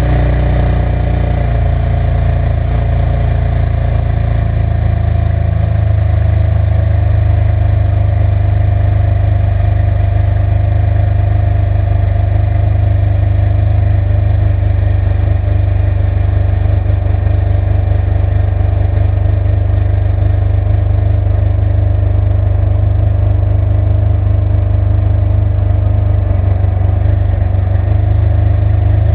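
Ferrari 599 GTB Fiorano's V12 engine idling steadily, a deep, even sound with no revs.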